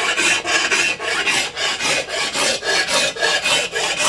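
Hand file rasping the rim of a freshly cast bronze uruli in even back-and-forth strokes, about four a second. This is the filing that cleans up the rough casting before it can be polished.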